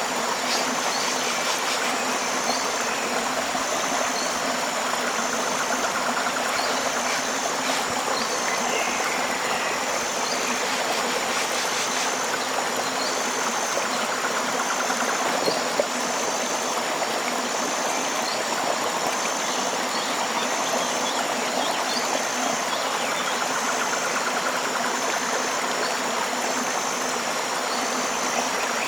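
River water flowing steadily, with a high pulsing call repeating about once a second and scattered bird chirps above it.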